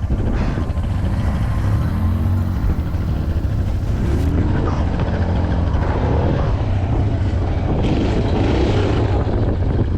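Off-road vehicle engine running over a steady low rumble, its pitch rising and falling as it revs while driving on sand.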